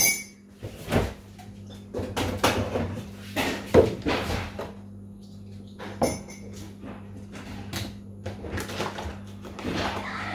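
Kitchen handling sounds: a refrigerator door opened and shut and cardboard milk cartons set down on a countertop, as a string of separate knocks and clunks with a sharp one at the start, over a steady low hum.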